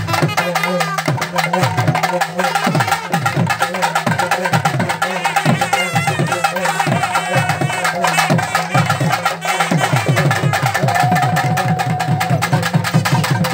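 Tamil folk festival band: laced barrel drums beaten in a fast, steady rhythm, each stroke dropping in pitch, under a trumpet melody. The trumpet holds one long note near the end.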